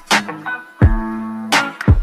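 Background music: plucked strings over a steady drum beat.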